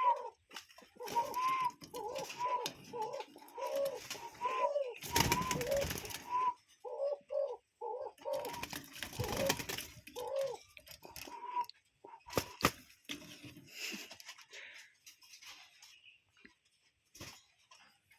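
Cuckoo calling an even series of short, arched hooting notes, about two a second, for some eleven seconds. Two loud stretches of rushing noise around five and nine seconds in, and a few sharp clicks a little after twelve seconds.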